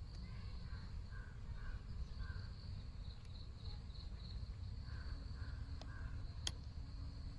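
Outdoor ambience: birds calling in short, repeated notes over a steady low rumble, with one sharp click about six and a half seconds in.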